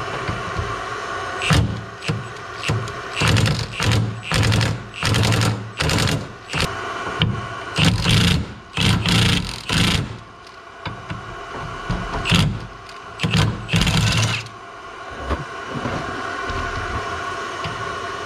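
Impact wrench working a body cab mount bolt in a string of short hammering bursts, about twenty over some thirteen seconds with a pause partway through, trying to break free the Loctite-secured bolt. A steady mechanical hum runs underneath.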